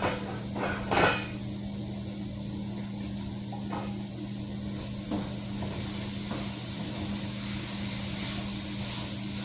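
Cooking pot sounds: a sharp knock about a second in, then a few lighter taps, over a steady low hum. In the second half a sizzling hiss grows louder.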